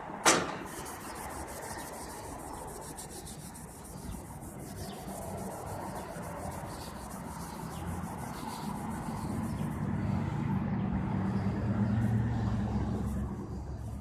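Chromed steel cart handle being rubbed by hand in steady repeated strokes. A sharp click comes just after the start, and a low hum swells through the second half.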